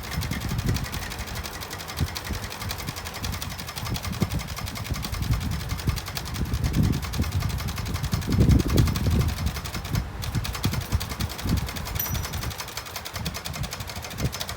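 Brother Valiant manual typewriter being typed on: a continuous run of quick key strikes.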